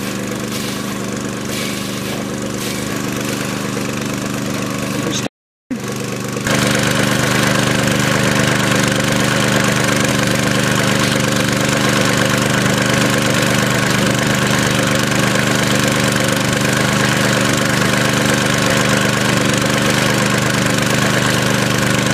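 Motor of an Electrodip automated sheep dip machine running steadily at an even idle. The sound drops out for about half a second around five seconds in, then comes back louder and runs on steadily.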